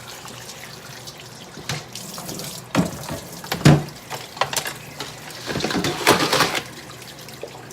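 Kitchen tap running into a sink while a blue crab is washed under it, with several knocks and clatters in the sink.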